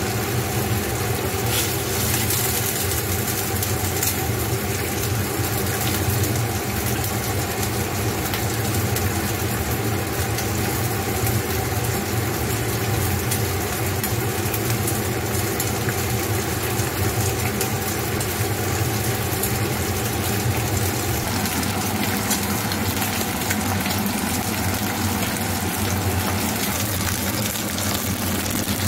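Pork chops sizzling in a frying pan over a gas burner, a steady crackling hiss over a constant low hum.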